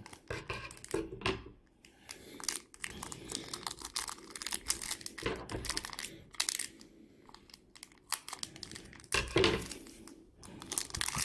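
A trading-card pack wrapper being torn open and crinkled, with irregular rustles and clicks as it is handled; the loudest crinkle comes about nine seconds in.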